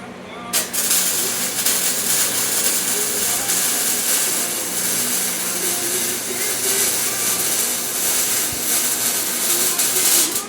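Harbor Freight Vulcan welder's arc crackling and hissing in one continuous weld, starting sharply about half a second in and cutting off just before the end.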